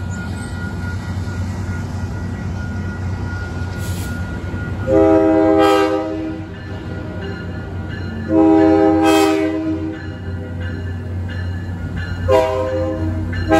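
Metro-North diesel locomotive 112 sounds its horn, a chord of several notes, over the steady rumble of its diesel engine as it rolls through a grade crossing. There are two long blasts about three seconds apart, then a third begins near the end.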